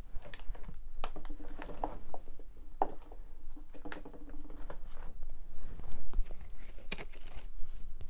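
Scattered light clicks and taps over a faint low hum.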